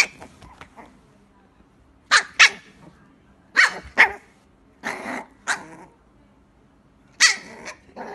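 Small white fluffy puppy barking: about eight short, high yappy barks, mostly in pairs.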